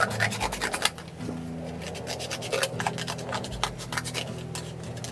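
Scissors cutting through cardboard: rapid, irregular scratching and rubbing strokes.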